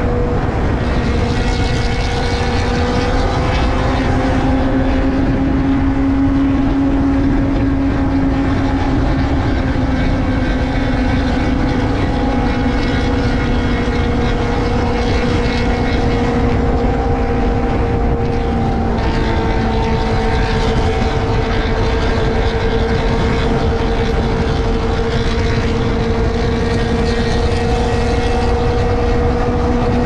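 Benelli TNT600i's inline-four engine and exhaust running at a steady cruise, the pitch holding nearly constant with only a slight rise and fall. Heavy wind noise on the microphone underneath.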